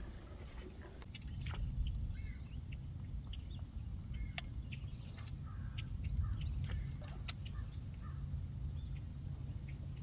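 Birds chirping and calling over a low, steady rumble, with a few sharp clicks scattered through.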